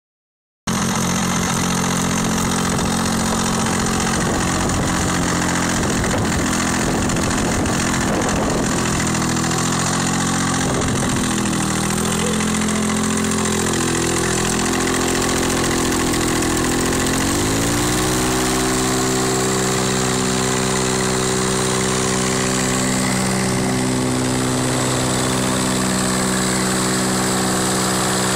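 Parajet paramotor's rotary engine running on the ground run-up, its propeller spinning. The engine speed wavers through the first half, then rises about two-thirds of the way in and holds steady at higher revs.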